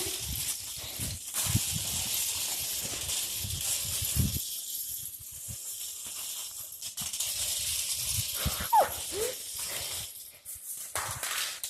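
Small plastic Lego car pulled along the ground on a string: a steady scraping hiss with rattling, the heavier rumble stopping about four seconds in.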